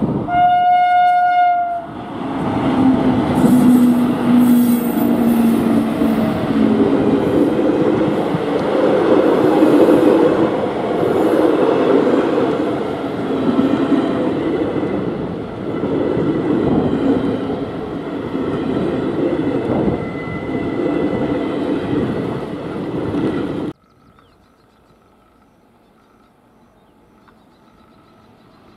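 WAP-7 electric locomotive sounding one horn blast of about a second and a half, then the loud, steady noise of a passenger train's coaches rolling past on the track. Near the end the sound cuts off abruptly to a faint hush.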